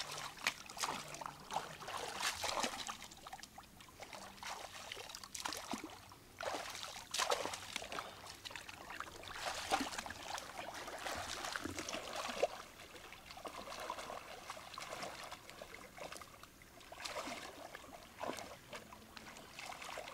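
Hands sloshing and splashing through shallow, muddy pond water, groping in the silt, in irregular bursts.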